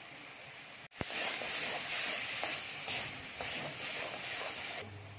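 Spiced masala frying in hot oil in a kadai, sizzling loudly while it is stirred with a metal spatula that scrapes the pan now and then. The sizzle starts abruptly about a second in and drops away near the end.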